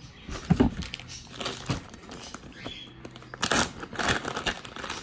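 Hands squishing slime and handling plastic over a plastic bin: irregular wet crackling and crinkling, with louder bursts about half a second in and again about three and a half seconds in.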